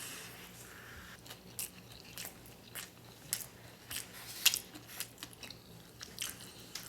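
A person chewing and eating noodles close to the microphone, with scattered small wet clicks and smacks. A faint steady hum lies underneath.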